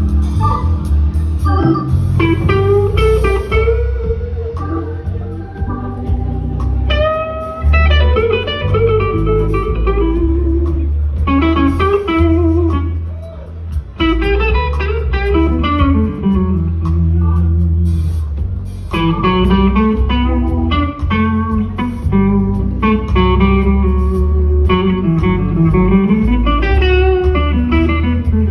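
Live blues electric guitar solo: long bent and vibrato-laden notes, with quick runs of short notes in the second half, over a heavy backing of drums and bass.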